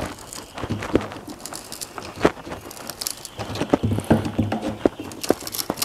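Steel screwdriver tip worked into the seam between the nailed-on trim and the wooden top of an old chest to pry the trim loose: a string of irregular small clicks, knocks and scrapes of metal on wood, the sharpest about two seconds in.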